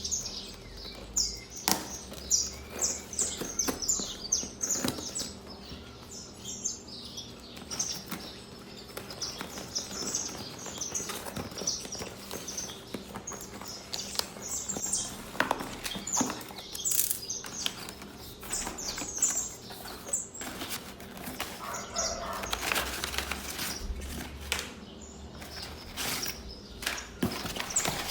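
Birds chirping repeatedly with short, high calls, with occasional knocks and handling noises.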